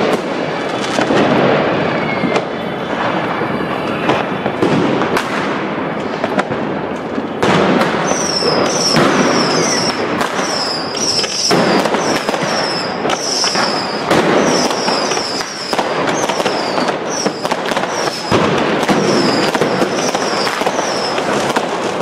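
Dense New Year's Eve fireworks: rockets and firecrackers banging and crackling without pause, many overlapping bangs. From about eight seconds in, short high whistling chirps repeat over the bangs.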